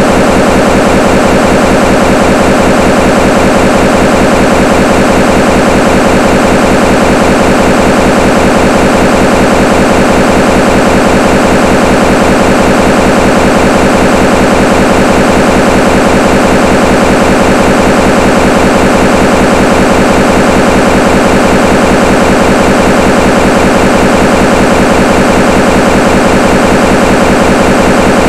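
Loud, unchanging static-like noise with a fine buzz, covering every frequency and drowning out the interview speech: a corrupted or distorted audio track.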